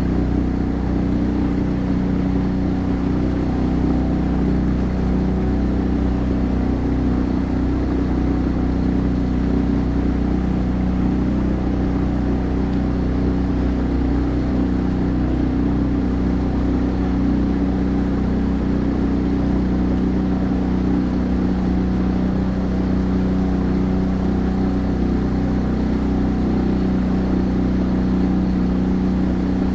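A boat's engine running steadily under way, a constant hum whose pitch and loudness don't change.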